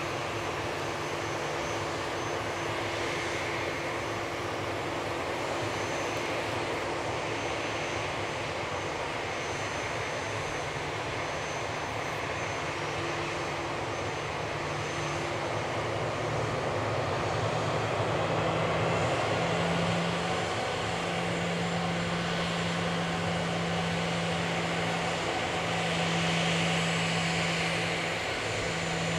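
Airbus A340-300 jet airliner running on the apron while hitched to a pushback tug: a steady rush of engine noise, with a low steady hum that grows louder about two-thirds of the way through.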